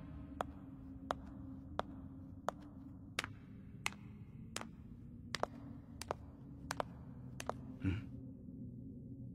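Cartoon footsteps of sandals on a hard floor, one sharp step about every 0.7 seconds, over a low steady drone. A brief rising sound comes near the end.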